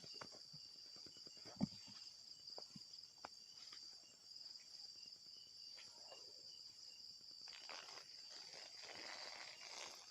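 Steady high trilling of crickets, with scattered footsteps crunching on dry leaves and twigs, a single sharp knock a little under two seconds in, and louder rustling underfoot near the end.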